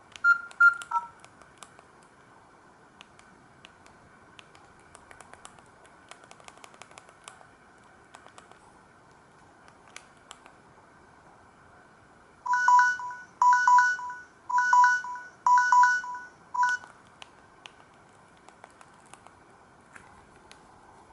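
Samsung GT-C3752 mobile phone's speaker playing a simple electronic ringtone: a trilling two-tone ring in four bursts about a second apart and a short fifth that cuts off. Before it, the last beeps of a previous tone, then a run of faint clicks.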